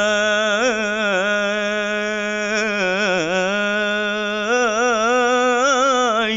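A young man's solo voice chanting Arabic devotional recitation, drawing one syllable out into a long melismatic note that wavers in ornamental turns without a break.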